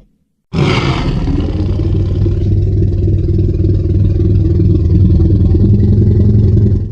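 A custom monster roar sound effect mixed from dinosaur and animal roars. It starts suddenly with a harsh, bright attack about half a second in, then holds as one long, deep roar for about six seconds and stops abruptly near the end.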